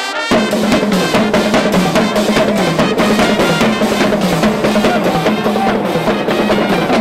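Pep band playing: a drumline of bass, snare and tenor drums beating a steady, driving rhythm under brass and woodwind horns.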